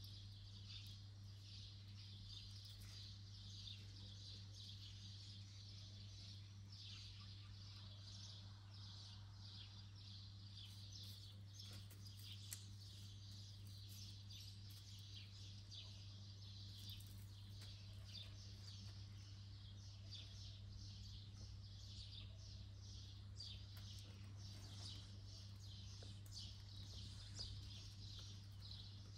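Faint outdoor ambience of small birds chirping continuously in a dense, high-pitched chatter, over a steady low hum.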